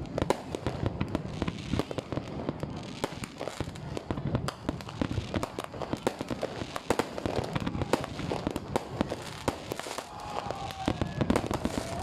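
Fireworks display: a dense, continuous barrage of bangs and crackles, many shells going off every second.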